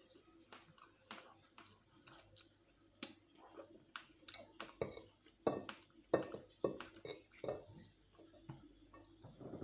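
Eating sounds close to the microphone: chewing and smacking on fried chicken, with a string of sharp clicks and clinks of cutlery and dishes, busiest through the middle.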